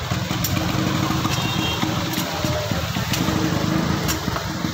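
A vehicle engine idling steadily amid street traffic.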